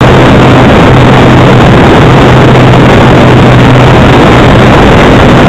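RC airplane's motor and propeller running steadily with heavy wind rush on the onboard camera's microphone: a loud, dense rushing noise with a steady low drone.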